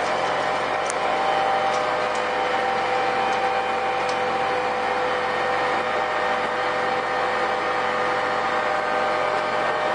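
Flat-die wood pellet mill and its motor-driven rotary sieve drum running: a steady machine hum with a few even tones above it. A few light ticks in the first four seconds.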